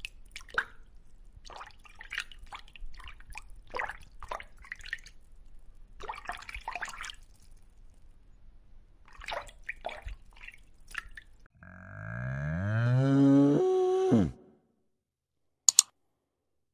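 Scattered drip-like clicks and small splashes over a low hum. Then a loud bovine moo that rises slowly in pitch and drops away abruptly, followed by two sharp clicks.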